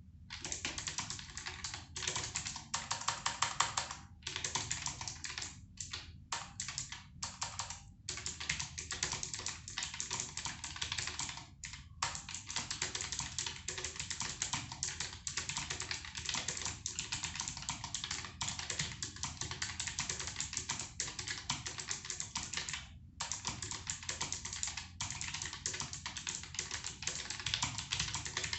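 Keychron K1 low-profile mechanical keyboard being typed on steadily, a fast run of key clicks broken by a few short pauses.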